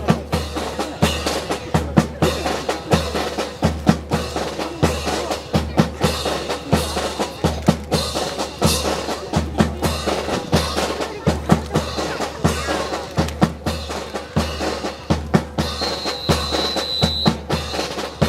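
Brass band playing a march, with a steady bass drum beat about twice a second and snare drum strokes. A brief high steady tone is heard about three-quarters of the way through.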